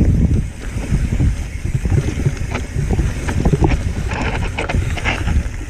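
Mountain bike rolling fast over a dry, stony dirt trail: a steady low rumble of wind on the camera microphone under a stream of clicks and rattles from the bike and tyres on loose ground, with a rougher scraping hiss about four seconds in.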